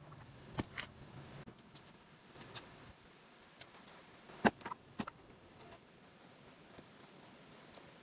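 Machete chopping into the soft, fibrous white core of a plant shoot. There are two quick knocks within the first second, then a cluster of three sharp chops about halfway, the first of them the loudest.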